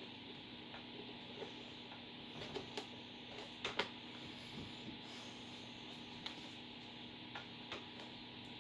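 Faint, irregular small clicks and taps of plastic computer parts being handled, with the loudest pair a little before the middle, over a low steady hum.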